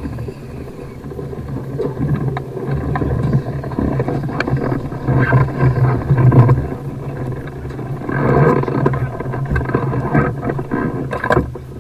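Strong wind buffeting the microphone over the rumble and scraping of a hot-air balloon's basket being dragged along the ground on landing. It swells about six and eight seconds in, with a sharp knock near the end.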